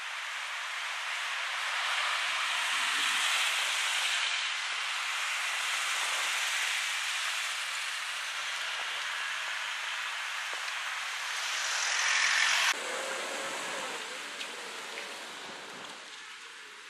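Cars driving past on a city street: a steady hiss of tyre and traffic noise with no clear engine note. It swells twice and drops off abruptly about 13 seconds in.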